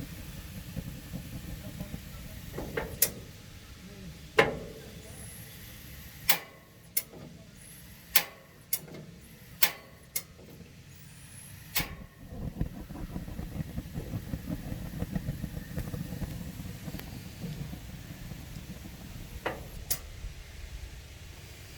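Back burner of a 32-inch Summerset TRL gas grill misfiring: a low flame rumble broken by about a dozen sharp, irregular clicks and pops. The rumble drops out for several seconds and comes back strongly about halfway through.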